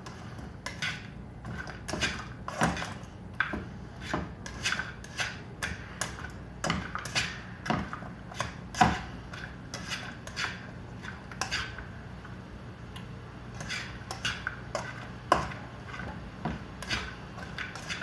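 Metal lid clinking irregularly on a stainless steel pot of water boiling hard, a few sharp clinks a second, over a steady low hum.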